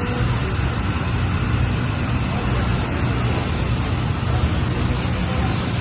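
Engine of a heavy road-cleaning vehicle running steadily: a low rumble under a constant even rush of noise.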